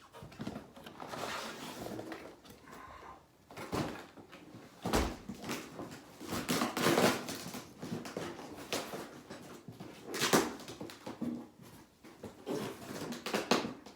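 Packaging rustling and crinkling as parts are lifted out of a box, with a few sharp knocks as pieces are handled and set down.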